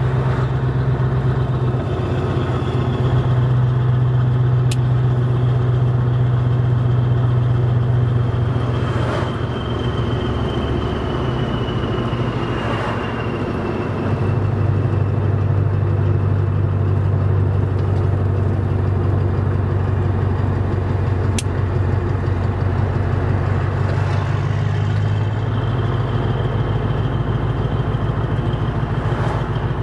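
Scania V8 truck engine running under way, heard from inside the cab: a deep, steady drone that drops in loudness for a few seconds about ten seconds in, then comes back up.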